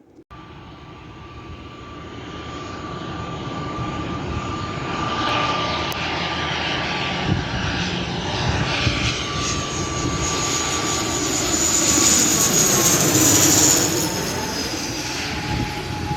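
Airliner's engines whining as it flies past close by. The sound grows steadily louder to a peak about thirteen seconds in, then the whine falls in pitch as the aircraft goes by.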